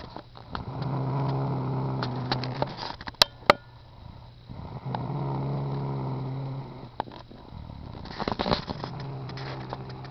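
Snoring: three drawn-out, buzzing snores about four seconds apart, each lasting about two seconds. A few sharp clicks come between the first and second snores, and some crackling comes just before the third.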